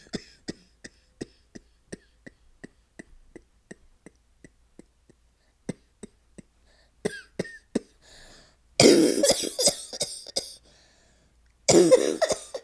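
A woman with a cold coughing, the nasty cough of her illness: a run of short, light coughs about three a second, then two loud coughing fits, one about nine seconds in and one near the end.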